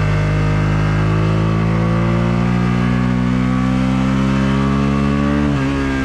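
1999 Suzuki SV650S's 645 cc V-twin pulling hard with the pitch climbing steadily under acceleration. Near the end the pitch drops sharply with a gear change and starts climbing again.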